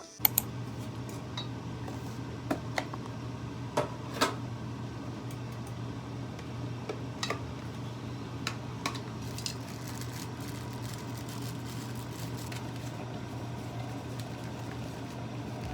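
Light clinks and taps of kitchenware, a few sharp ones about two to four seconds in and fainter ones later, over a steady low hum.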